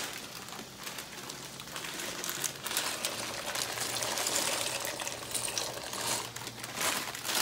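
Dry penne pasta poured from a crinkling plastic bag into a pot of boiling water: a dense, rattling rush of many small clicks that builds from about two seconds in, over the bubbling of the water.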